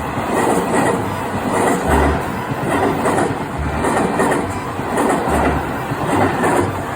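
Electric train running past close by, a loud, continuous rumble and rattle of the cars.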